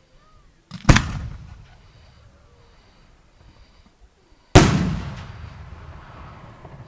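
Two loud firework bursts about three and a half seconds apart, each a sharp bang followed by a rumbling echo that dies away over a second or two.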